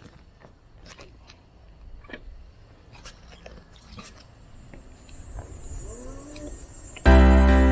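Faint low rumble of an e-scooter rolling along a paved trail, growing louder toward the end, with scattered small clicks and a thin, steady high whine. Background music cuts in abruptly near the end.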